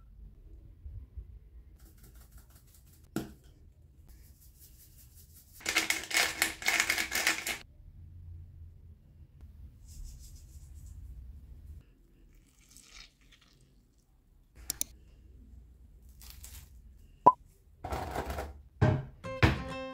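Food preparation at a glass mixing bowl: a spice shaker rattled for about two seconds, then scattered light taps and clicks, with one sharp clink near the end.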